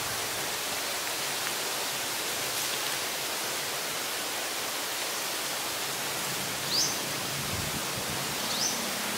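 Steady outdoor background hiss by a pond, with two short rising bird chirps about two seconds apart near the end.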